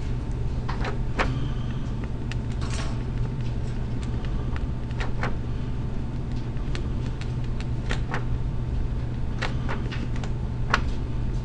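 Marker pen writing on grid paper: short scratches and taps of the tip, scattered and uneven, over a steady low hum.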